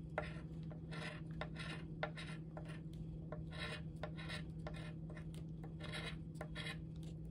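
Scratch-off lottery ticket being scratched: short scraping strokes across the latex coating, about three a second, over a steady low hum.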